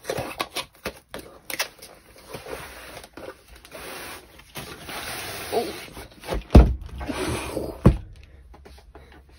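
Paper and packaging of a diamond painting kit being handled and opened: irregular rustling and crinkling with small clicks, and two heavier thumps in the second half.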